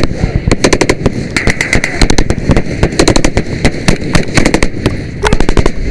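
Rapid rifle fire from several rifles, many shots a second overlapping irregularly, during a squad's fire-and-movement drill.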